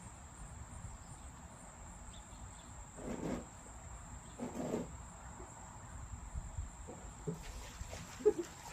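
Insects trilling in a steady, unbroken high-pitched drone, with a couple of brief low sounds partway through and a sharp tap near the end.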